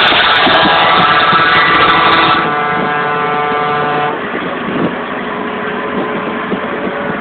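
Truck air horn sounding in a long steady blast over road and engine noise, fading to a weaker tone about four seconds in.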